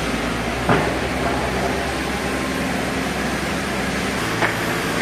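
Sawmill machinery running steadily, a droning hum with a low rumble that drops away about four seconds in. A sharp knock comes under a second in, and a smaller one near the end.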